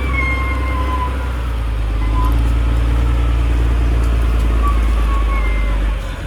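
Bulldozer's diesel engine running steadily under load, with a high whine fading in the first second. It drops to a lower, quieter run near the end.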